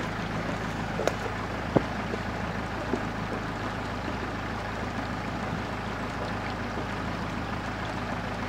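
Land Rover Defender 110 engine running steadily as the vehicle wades in a river, under the wash of the moving water, with a couple of sharp knocks about one and two seconds in.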